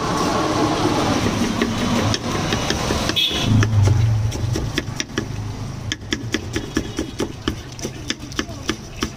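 Knife blade chopping onion and green chillies on a wooden chopping board in quick, regular chops about three a second, steadiest from about halfway through. Under it, a low engine-like rumble, loudest around four seconds in and fading after.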